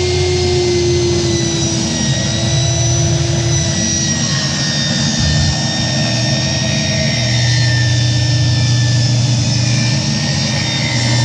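A Ryobi 10-inch 15-amp table saw running with a loud, steady motor whine. The pitch sags slightly after about a second and comes back up near the end.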